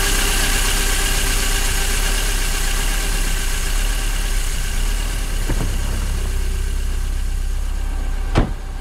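Volvo 245's red block four-cylinder engine idling steadily shortly after a cold start, with a sharp click near the end.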